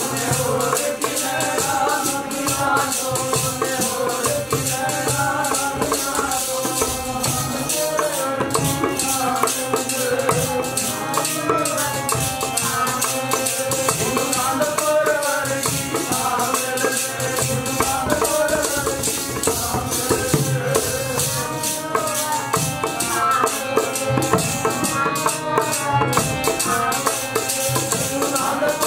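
Sikh kirtan: a man singing a devotional hymn to his own harmonium, with fast, steady jingling percussion beneath.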